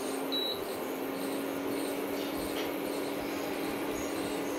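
Steady kitchen background of a low hum and an even hiss, with faint light ticks from a plastic spoon stirring grated jaggery into chana dal water in a pot on the stove.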